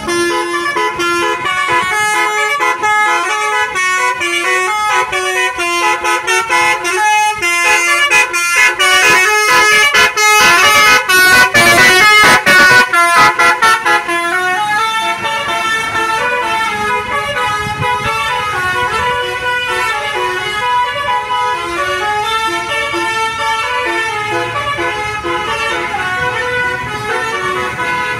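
Bus 'basuri' telolet horn, a multi-tone musical air horn, playing a tune in quick stepped notes. In the middle it runs into a fast stuttering flurry of notes, the loudest part, then goes on with slower, smoother notes.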